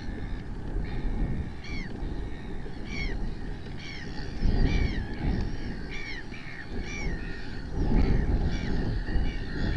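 Gulls calling off-screen, a run of harsh, downward-slurred cries about once a second, over a low rumble of wind on the microphone that gusts louder about halfway through and again near the end.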